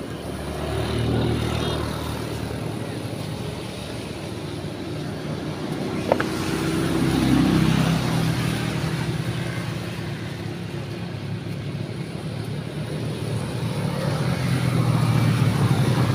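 Motorcycles passing on a wet road: engine hum and tyre hiss swell and fade several times. A single sharp click about six seconds in.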